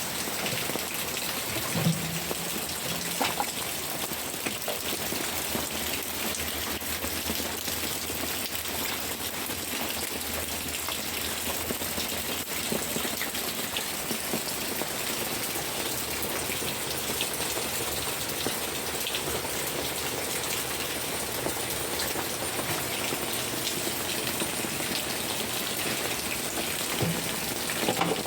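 Steady rain falling, with a constant hiss and scattered tapping drops.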